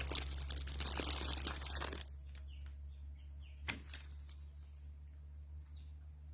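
Packaging crinkling and rustling as piston rings are unwrapped, dense for about two seconds and then stopping, followed by a single sharp click of a ring being set down, over a low steady hum.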